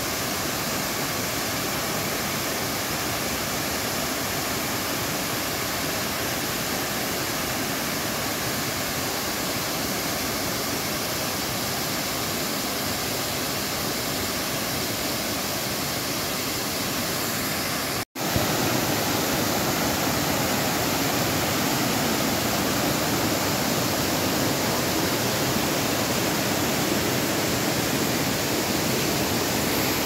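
Waterfall plunging into a rock pool: a steady rushing of falling water. After a brief break about two-thirds of the way through, the rushing is louder and fuller, as from closer to the falling water.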